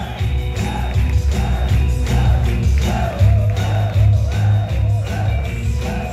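Live pop performance over a concert sound system: a female singer's voice over a band backing with a heavy, steady bass beat, her wavering sung line coming forward about halfway through.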